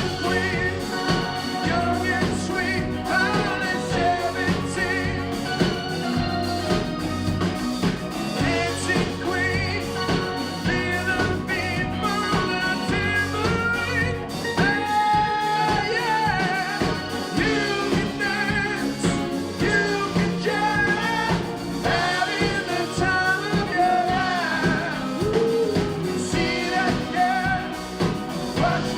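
Rock band playing a song, with a sung lead vocal over guitars, bass and drums.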